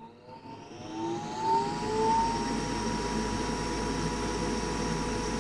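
Goodman gas furnace's draft inducer motor spinning up after power is switched on: a rising whine that settles into a steady whir with a constant tone about two seconds in.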